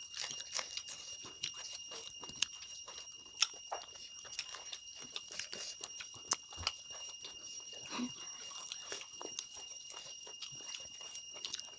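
Close-miked mukbang eating sounds: chewing, lip-smacking and crunching on smoked duck meat, a rapid irregular run of wet clicks. A faint steady high whine sits underneath.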